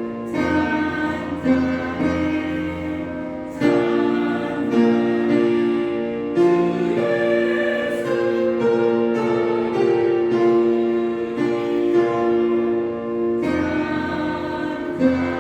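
A church choir sings a praise song with instrumental accompaniment, holding sustained chords that change every few seconds.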